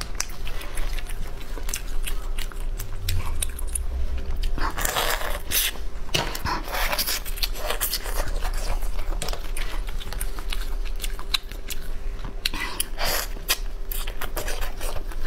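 Close-miked eating of cooked crayfish: crunching and biting, with wet sucking and chewing as the meat is drawn from the shells. There are many small clicks and crackles, and two longer wet, noisy stretches about five seconds in and again near the end.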